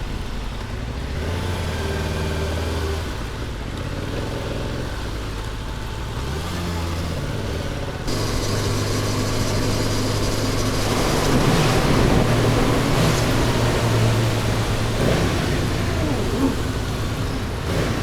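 Motorcycle engine running under way, its pitch rising and falling with the throttle, with wind rushing over the microphone that grows louder about halfway through.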